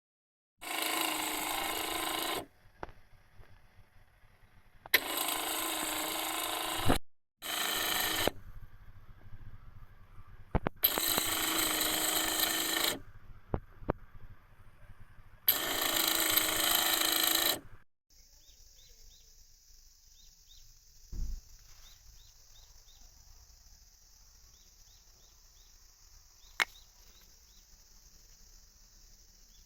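Toyota Chaser JZX100 wiper motor running in five bursts of a second or two each, giving a harsh grinding buzz: the abnormal noise of a faulty wiper motor. After the last burst only a faint steady hiss with small chirps and a single click remains.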